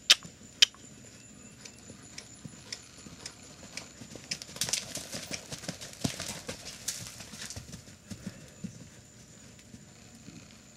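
Hoofbeats of a ridden horse trotting on a dirt arena, loudest in the middle as it passes close by. Two sharp clicks come right at the start.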